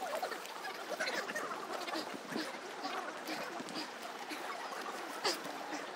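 Busy outdoor background of faint, indistinct voices and calls, with one short knock about five seconds in.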